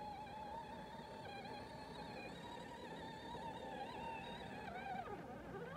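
Electric motor of a battery-powered ride-on toy tractor whining steadily, its pitch wavering slightly as it drives, then dipping and rising again near the end, with a sharp click at the very end.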